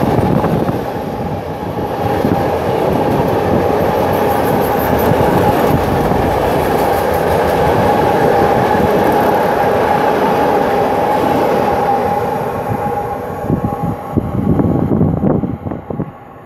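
Container freight train's wagons rolling past close by: a steady rolling rumble of wheels on rail with a thin high ringing tone over it. The sound breaks up and falls away in the last few seconds as the end of the train goes by.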